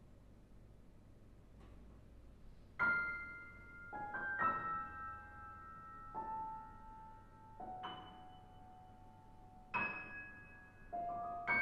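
Steinway grand piano played slowly and sparsely: after about three quiet seconds, single notes and chords are struck roughly every second or two and left to ring out.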